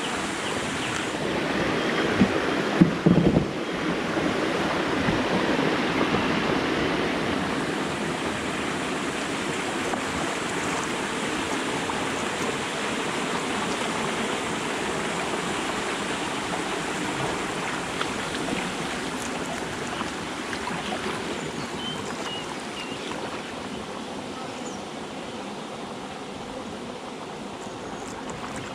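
Steady rushing of water from a weir on the river, slowly growing fainter, with a few sharp knocks about three seconds in.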